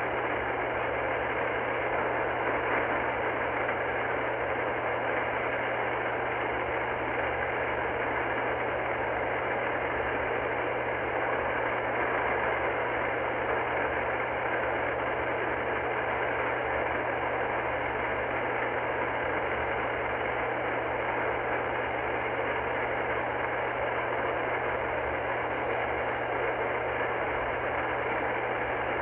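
Icom R30 receiver giving steady static hiss on the 27.385 MHz lower-sideband channel with no station transmitting, the hiss cut off above the voice band, over a low steady hum.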